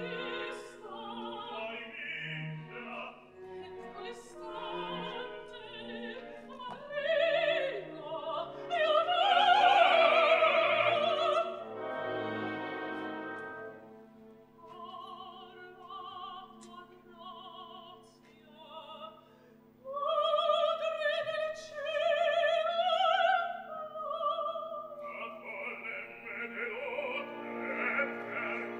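Operatic singing with orchestral accompaniment: a soprano and other solo voices sing with wide vibrato over sustained orchestral chords. The singing is loudest about ten seconds in and again around twenty seconds in, with a quieter stretch between.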